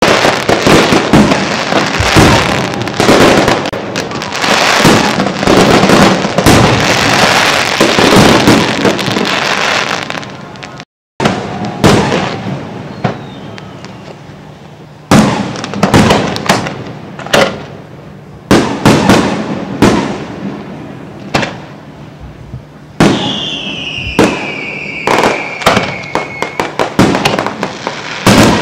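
Aerial fireworks display: a dense barrage of booming shell bursts and crackles, then more widely spaced bangs, each with a long echoing tail. Partway through the sound cuts out briefly, and near the end a falling whistle sounds among the bursts.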